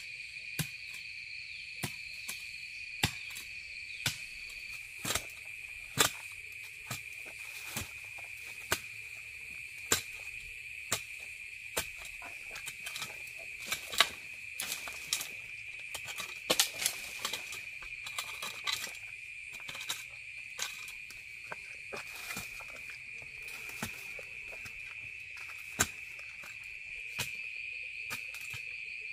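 A hoe striking into earth about once a second, with a stretch of scraping of loose soil midway, over a steady high-pitched drone of forest insects.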